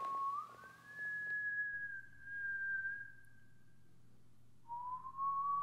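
A single pure, whistle-like melody line, slow and eerie: one long note that slides up near the start, holds and sinks slightly before fading about four seconds in, then a lower note that rises gently near the end.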